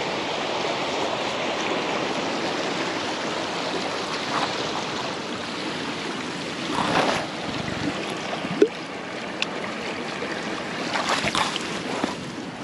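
Steady rushing outdoor noise, with occasional rustles and light knocks from tents being pitched.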